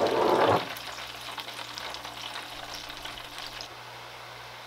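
French fries deep-frying in hot oil in an electric deep fryer, a steady crackling sizzle. It surges louder in the first half-second and thins out about three and a half seconds in.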